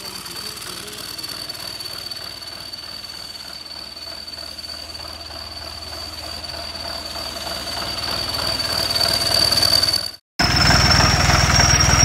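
Turbocharged John Deere tractor diesel engine running, with a steady high-pitched turbo whistle over the engine's rumble. The engine grows louder toward the end, and after a momentary dropout both the engine and the whistle are louder, the whistle a little higher.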